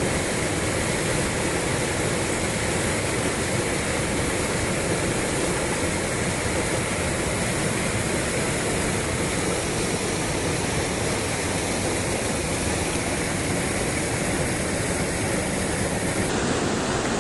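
Fast mountain stream rushing over boulders in white-water rapids: a steady, loud rush of water.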